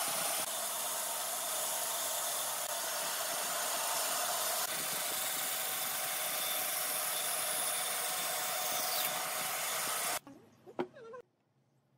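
Band saw running and cutting through a wooden board along a curved line: a steady hiss with a faint whine under it. About ten seconds in it cuts off abruptly, leaving a brief short sound and then near silence.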